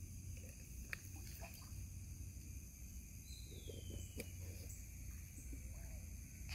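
Faint outdoor ambience: a steady high-pitched whine with a low rumble underneath, a few soft clicks, and one short falling whistle about three seconds in.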